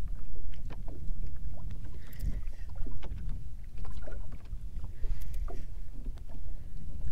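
Small waves lapping against a fishing boat's hull, with a low wind rumble on the microphone and scattered light knocks.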